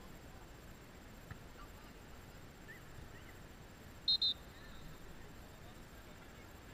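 Referee's whistle blown in two short, sharp blasts in quick succession about four seconds in, over a faint background of distant voices on an open field.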